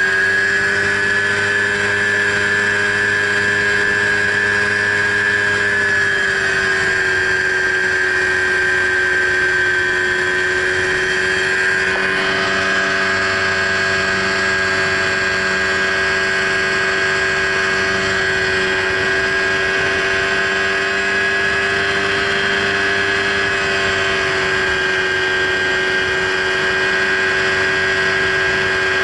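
Aerotrike's engine and propeller running steadily in flight. The pitch eases down slightly about six seconds in and then holds.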